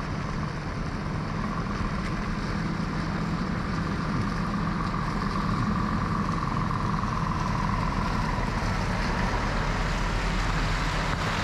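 Scania semi-truck pulling a loaded curtainside trailer, its diesel engine running steadily at low speed as it drives toward and past, slowly growing louder as it nears. A faint high whine rides over the engine.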